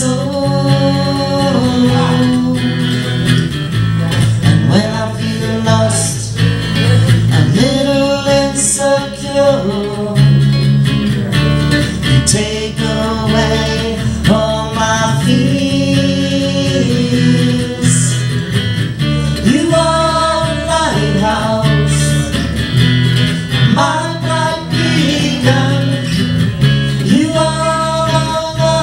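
Live acoustic band playing a song: acoustic guitar strummed over bass, with singing.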